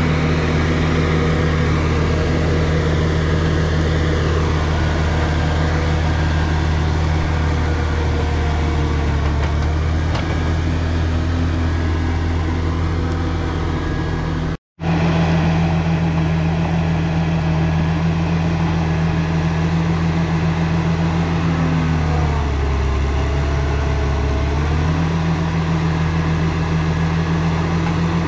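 Caterpillar 953 track loader's diesel engine running steadily while it pushes stumps and debris. About three quarters of the way through, the engine note sags for a few seconds and then comes back up. The sound cuts out for an instant about halfway.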